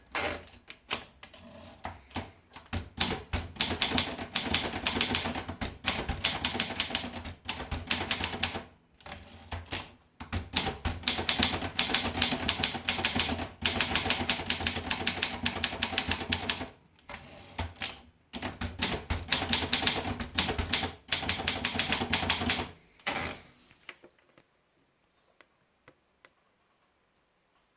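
Optima Elite typewriter being typed on fast, its keys clacking in long rapid runs broken by short pauses. The typing stops about 23 seconds in, leaving only a few faint ticks.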